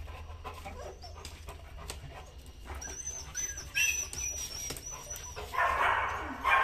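Golden retriever whining: a run of about five short, high-pitched whimpers in the middle of the stretch. A louder, breathy noise follows near the end.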